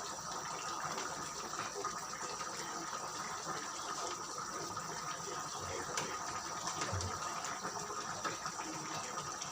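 Tomato-based sauce with chicken and potatoes simmering in a pan: a steady low bubbling with faint small pops.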